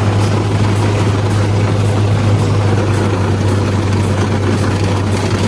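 Loud, steady engine drone with a strong constant low hum and dense noise over it, heard from inside the vehicle, unchanging throughout.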